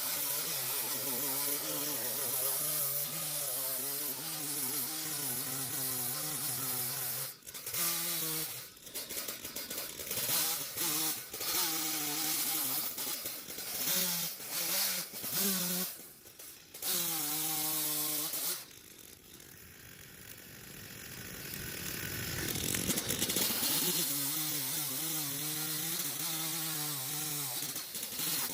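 HOLZFFORMA two-stroke petrol chainsaw running at speed and cutting wood, its pitch wavering. Through the middle it breaks off abruptly several times. About two-thirds of the way in it drops quiet, then builds back up and runs steadily again.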